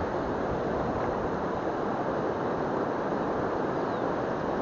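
Steady rushing of falling water from a river waterfall.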